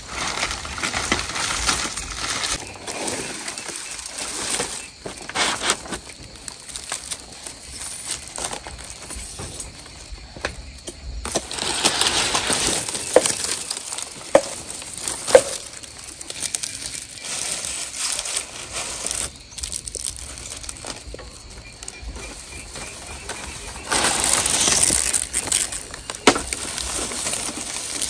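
Rustling and crunching handling noise with scattered sharp clicks and knocks; the rustling grows louder twice, about eleven seconds in and again near the end.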